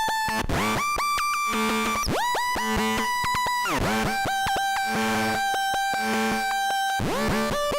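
Elektron analog synthesizer preset playing a bright, buzzy lead line of held notes, each swooping up into its pitch, over a steady repeating low pulse.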